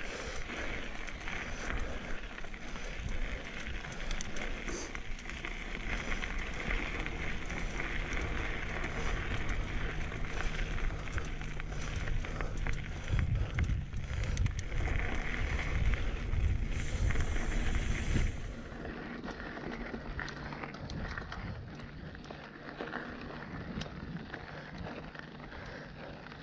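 Mountain bike ridden along a dirt trail: tyres crunching and rattling over loose gravel, with wind buffeting the microphone. It quietens about eighteen seconds in.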